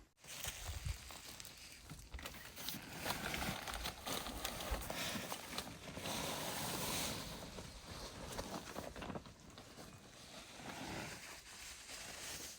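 Rustling and handling noise of camping gear being packed up, with scattered clicks and knocks throughout.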